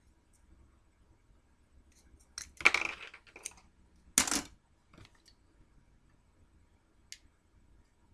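Small hard objects being handled and clattering on a tabletop: a rattling burst about two and a half seconds in, a sharper clatter about four seconds in, then a faint click near the end.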